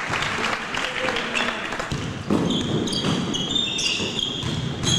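Basketball game on a hardwood gym floor: sneakers squeaking in short high chirps as players run and cut, with a ball bouncing and the gym's echo.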